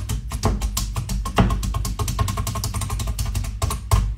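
Hand-held needle meat tenderizer pumped quickly into raw beef slices on a cutting board: a fast, uneven run of sharp clicks, several a second, over a steady low hum.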